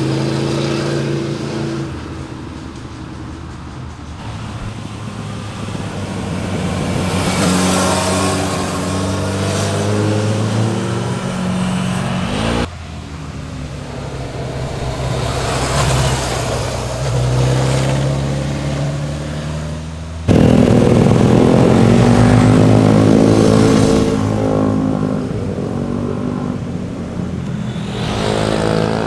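Motorcycles riding past one after another, their engines revving up and easing off so the pitch rises and falls as they shift and accelerate through a bend. The sound changes abruptly twice where one passing bike gives way to the next, the loudest stretch coming in the second half as a group of bikes goes by.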